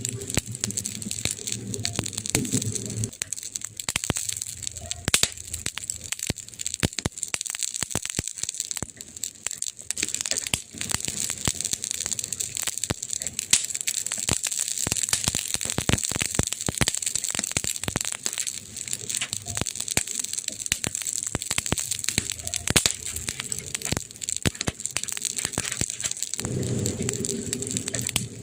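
Wood fire in a fireplace crackling and popping continuously, with many sharp pops over a steady hiss. A low rumble sits under it for the first three seconds and comes back near the end.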